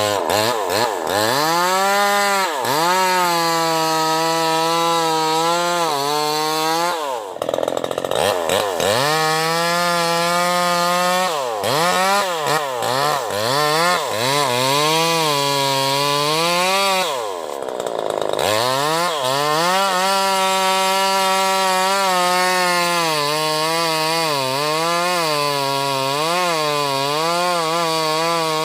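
Bosco 5880 two-stroke petrol chainsaw running at high revs while cutting sengon wood. It drops back toward idle twice, about seven and seventeen seconds in, and revs up again. Near the end the revs rise and fall in quick swells.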